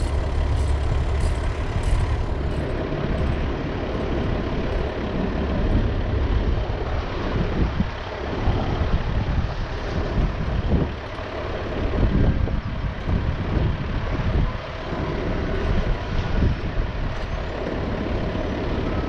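Diesel engine of a flatbed rollback truck idling steadily, with irregular low rumbles over it in the middle stretch.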